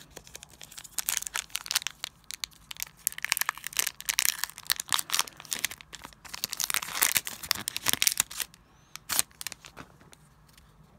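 Foil Pokémon booster pack wrapper being torn open and crinkled, a run of crackling rustles that thins out near the end.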